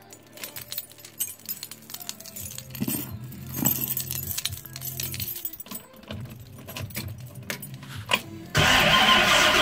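A bunch of keys jangling on a ring as the ignition key is worked. About a second before the end, the car's 351 Windsor V8 starts and keeps running, suddenly much louder than the keys.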